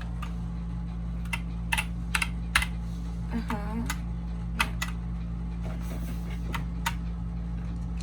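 Key presses on a TMKB GK61 mechanical keyboard with Gateron optical switches: about a dozen separate, irregular clacks as the Fn key combination is pressed repeatedly to cycle the backlight modes.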